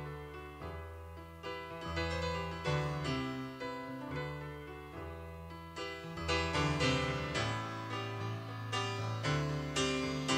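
Piano playing a soft-rock song's instrumental introduction, a flowing run of chords over sustained low bass notes, with no singing.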